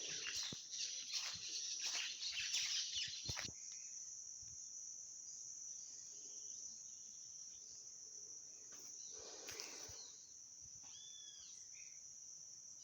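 A steady high-pitched drone of crickets or similar insects, with rustling and brushing noises through the first three seconds or so and again briefly around nine seconds in. A few short bird chirps come near the end.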